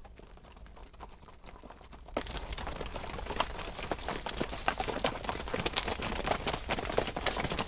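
Hooves of a herd of horses walking, many overlapping clip-clops in a dense, irregular patter that starts suddenly about two seconds in after a short quiet stretch.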